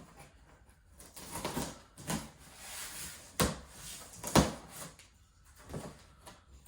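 Cardboard shipping box being opened by hand: scattered rustling and scraping of cardboard and packing. There are two sharp knocks a second apart about halfway through, the second one the loudest.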